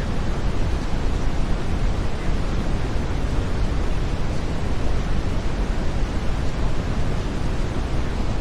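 Steady brown noise: an even, unbroken rushing hiss, heaviest in the low end and thinning toward the top.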